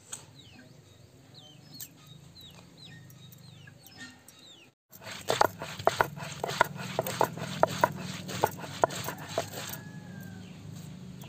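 A stone roller crushing garlic, green chillies and coriander leaves on a wet stone grinding slab (sil-batta): a run of sharp knocks and scrapes, about two to three a second, starting about five seconds in. Before that, short high peeping calls repeat about twice a second.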